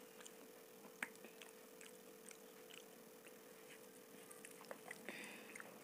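Faint hand-eating sounds: fingers mixing soft khichdi on a steel plate and soft mouth clicks, heard as scattered small ticks with a sharper click about a second in and a brief rustle near the end, over a faint steady hum.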